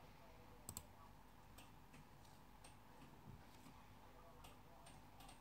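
Near silence: room tone with a faint hum and a few scattered small clicks, the clearest a quick double click about a second in.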